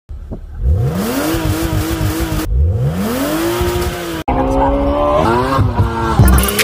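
BMW E36 engine revving in short cut-together clips. Twice the pitch climbs and holds high, and a third held rev breaks up into quick falling dips near the end.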